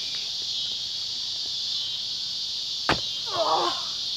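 Insects chirring steadily and high-pitched in the background. About three seconds in comes one sharp thump, followed at once by a child's short squealing cry.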